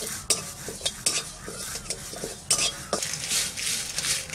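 Metal spatula scraping and stirring dry red chillies in a dry metal wok as they roast, in a run of irregular scrapes and clinks.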